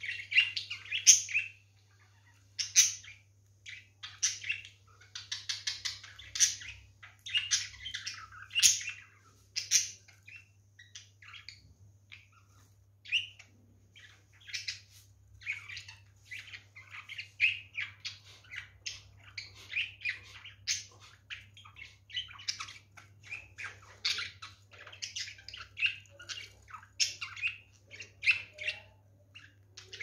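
Budgerigars chirping and chattering: loud, sharp squawks and chirps in the first ten seconds, then a quicker run of softer warbling chatter.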